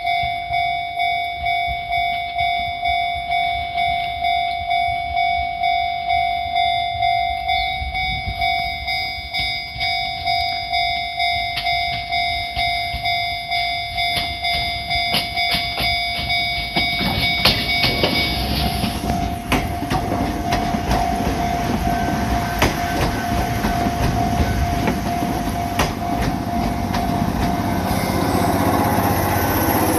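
Japanese level-crossing warning bell ringing in a steady, repeating ding, which stops about 18 seconds in. Then a Fujikyu 1000-series electric train (ex-Keio 5000 series) rolls past, its wheels clattering over points and rail joints, growing louder near the end.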